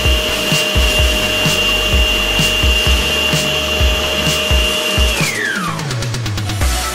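Arno electric stand mixer's motor running with a steady whine. It is switched off about five seconds in and winds down, its pitch falling away. Background music with a steady beat plays throughout.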